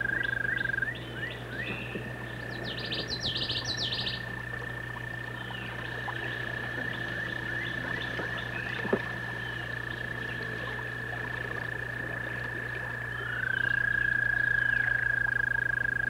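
Frogs trilling: a long, steady high trill, briefly broken about a second in, with a second trill sliding in near the end. Birds chirp over it, with a quick flurry of chirps around three seconds in.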